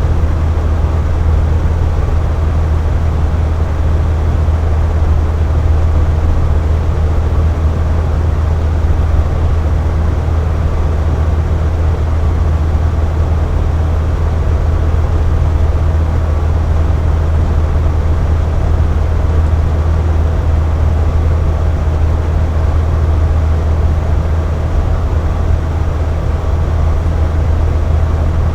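Box fan running steadily: a low, even whoosh of air with a deep hum, and a faint steady whine from the motor.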